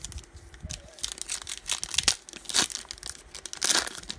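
Foil wrapper of a 2009 Topps Finest baseball card pack being torn open by hand, crinkling in a series of short rips, the loudest near the end.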